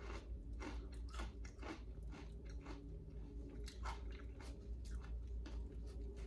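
Close-up chewing of a crunchy snack, with irregular crisp crunches as the bite is broken down.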